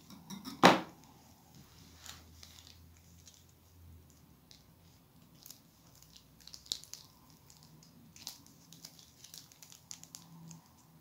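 Thin plastic piping bag crinkling and crackling in the hand as glitter slime is squeezed out of it, with scattered small clicks. One sharp crackle, under a second in, is the loudest sound.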